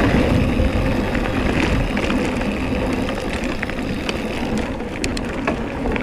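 Mountain bike rolling along a dirt forest trail: wind buffeting the microphone and tyres rumbling over the ground, with scattered clicks and rattles from the bike and loose gravel, more of them in the last couple of seconds.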